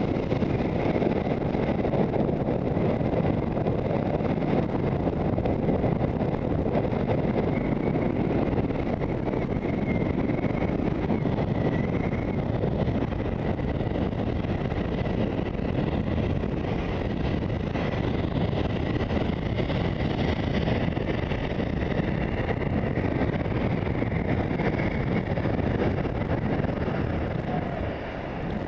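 Wind buffeting a skier's camera microphone during a downhill run, mixed with the hiss of skis gliding over packed snow. The rush eases a little near the end as the skier slows.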